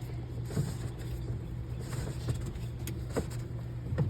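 A few short, sharp plastic clicks and knocks as a cap is screwed onto an RV's sewer outlet, over a steady low hum.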